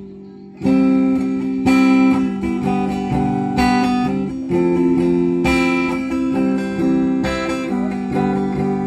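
Acoustic guitar played through a small amplifier by way of its pickup (spul). Chords are played with a fresh stroke about every second, starting after a short gap, in a tone called clean (bersih).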